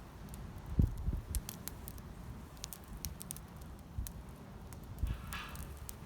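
Wood campfire crackling, with sharp pops scattered irregularly, a few low thuds (the loudest about a second in), and a brief rustle near the end.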